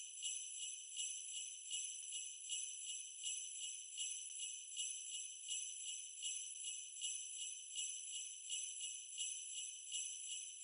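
Jingle bells shaken in a steady rhythm, about two shakes a second, a bright metallic ringing.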